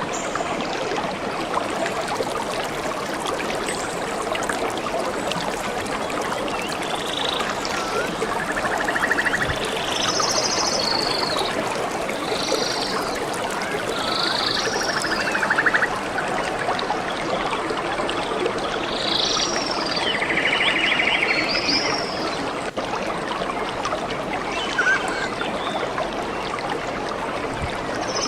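A stream flowing and trickling steadily, with short animal calls, most likely birds, breaking in now and then, several of them between about seven and twenty seconds in and one near the end.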